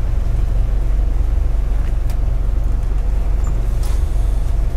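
Motor cruiser's inboard engine running at low speed, a steady low rumble, with a couple of light clicks about two and four seconds in.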